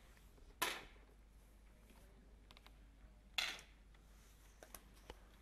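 Two 10 m air pistol shots, about three seconds apart: each is a single sharp pop that rings off briefly in the hall. A few faint clicks come between them.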